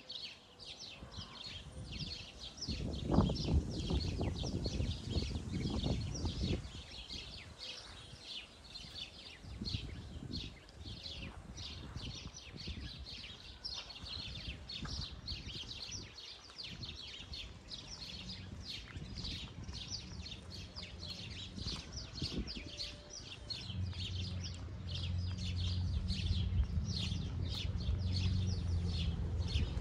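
Many small birds chirping and singing without pause. A low rumble comes and goes about three to six seconds in, and a low steady hum sets in for the last few seconds.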